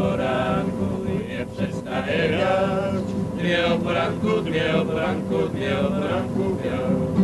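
Background music of male voices singing together as a choir.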